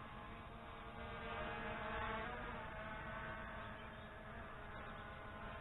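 MJX Bugs 5W quadcopter hovering, its brushless motors and propellers giving a fairly faint, steady multi-toned buzz that swells slightly about two seconds in.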